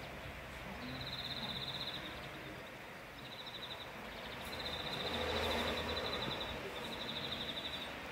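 Wind blowing outdoors, swelling in a gust about five seconds in, with a high, rapid trill repeating in runs of one to two seconds through it.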